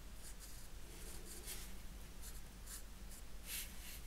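Faint scratchy rubbing of fingers handling a small titanium pocket adjustable wrench, a few short scrapes with the strongest near the end.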